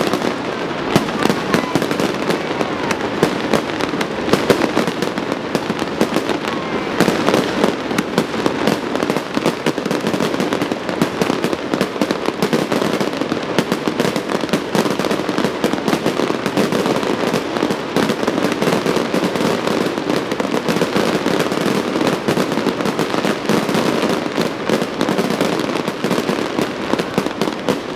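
Fireworks going off continuously: a dense, rapid stream of crackles and pops with no pauses.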